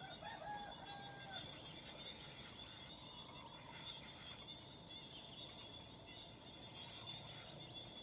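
A rooster crows faintly once at the start, a few short notes ending in a longer held one, over a steady background of small birds chirping.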